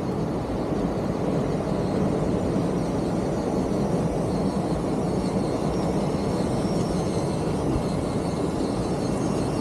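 1/16-scale WPL C24 RC truck driving over stone paving: a steady rumble from its tyres and drivetrain, with a faint high electric-motor whine that rises and falls with the throttle.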